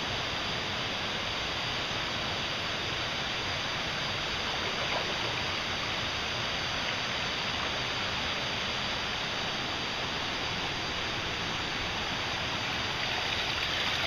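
Steady rush of running water, growing a little louder near the end.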